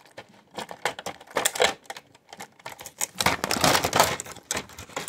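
Plastic parts of a Brother DCP-35C inkjet printer clicking and rattling as the cartridge holder mechanism is wrenched loose by hand, with a dense, loud run of clicks and snaps about three seconds in.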